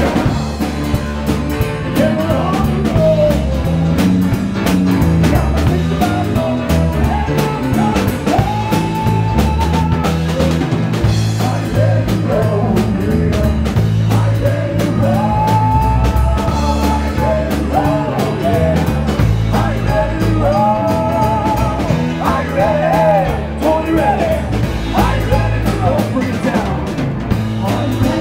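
Live rock band playing: bass guitar, drum kit and electric guitar, with a man singing the melody in several long held notes.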